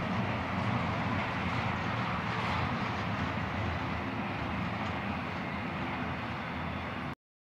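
Double-stack intermodal freight train's well cars rolling past on the rails in a steady rumble and rush, easing slightly as the last car goes by. The sound cuts off suddenly about seven seconds in.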